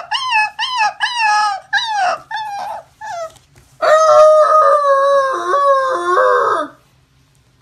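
Husky puppy howling: a string of about seven short, bending yowls over the first three seconds, then, after a brief pause, one long wavering howl that stops near the end.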